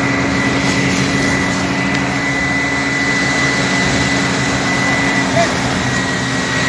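A steady engine running, with a constant high whine over a low hum and a noisy rush that holds level. Faint voices can be heard.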